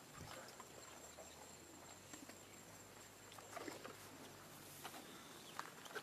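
Quiet outdoor ambience with faint rustling and a few soft crackles of tall grass as an Asian elephant walks through it.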